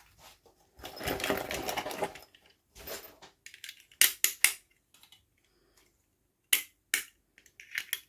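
Toy packaging being handled for an unboxing: a dense rustle about a second in, then a string of sharp clicks and taps.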